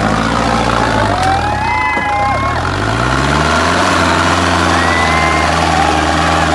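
Mahindra Arjun 605 tractor's four-cylinder diesel engine working hard as the tractor rears up on its rear wheels. The engine dips in pitch, then climbs back up about three seconds in and holds a steady high run. Shrill whistles sound over it twice, about a second in and again past the middle.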